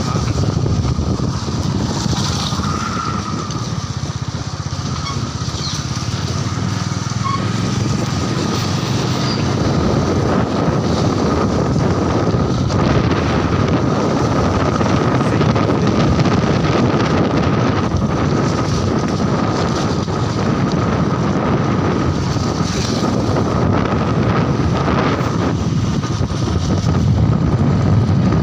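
Motorcycle being ridden, its engine and road noise running steadily, with wind rushing over the microphone.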